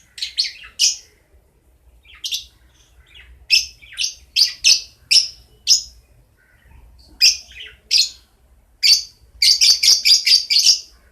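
Lovebirds chirping: short, sharp, high calls in irregular groups, ending in a fast run of about ten calls.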